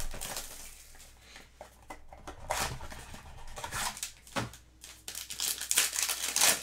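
Foil wrapper of a trading-card pack being torn open and crinkled by hand, in irregular bursts of tearing and rustling, heaviest near the end.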